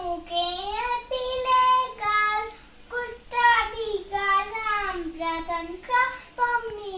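A young girl singing a rhyming Hindi poem line by line in a high sing-song voice, holding and bending the notes.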